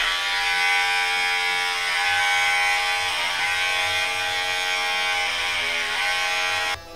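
Corded electric hair clippers buzzing steadily as they are run over the head, dipping briefly in pitch twice as they are pushed through the hair. The buzz cuts off near the end.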